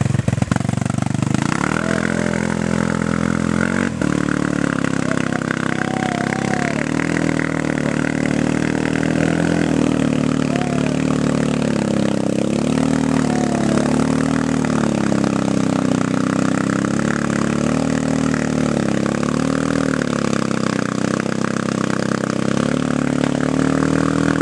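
Quad bike engine revving hard and unevenly, its pitch rising and falling over and over, as the two-wheel-drive quad's wheels spin and churn through deep mud while it is stuck in the bog.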